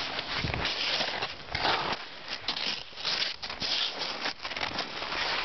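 Atomic downhill skis scraping and hissing over snow in irregular swelling bursts, with crackly crunches.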